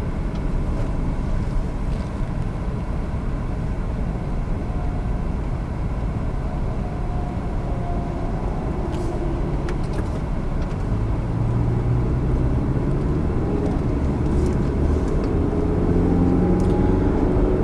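Road and engine noise inside a moving car: a steady low rumble, with the engine rising in pitch as the car speeds up in the second half.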